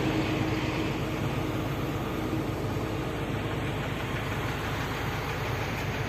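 Diesel engine of a hydraulic excavator running steadily, a low, even drone.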